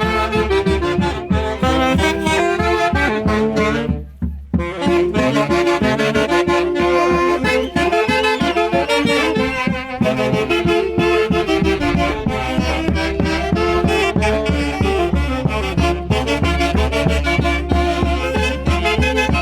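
A Peruvian orquesta típica playing Santiago festival music, with saxophones and clarinets carrying the melody over a steady beat. The band breaks off for a moment about four seconds in, then plays on.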